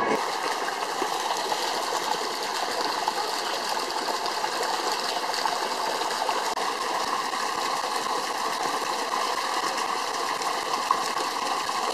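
Water jets pouring into a churning pool, a steady rushing and splashing.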